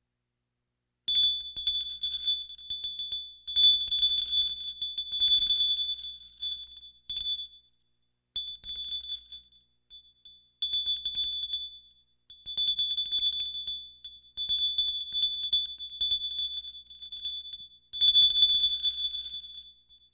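A crystal bell shaken rapidly, ringing with a high, clear tone in repeated bursts of quick strikes. Each burst lasts one to three seconds, with short pauses between them.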